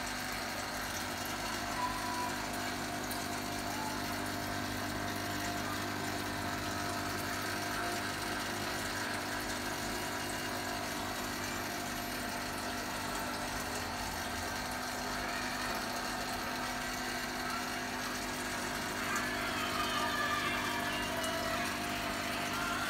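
Aquarium pump running with a steady hum, with air bubbling in the tank.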